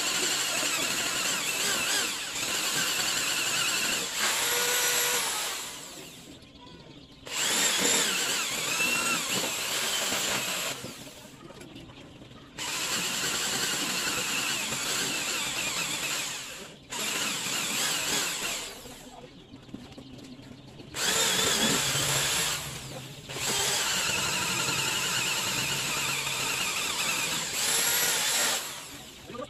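Corded electric drill boring holes into a wooden strip, running in about six spells of a few seconds each with short pauses between. Its whine wavers in pitch as the bit cuts.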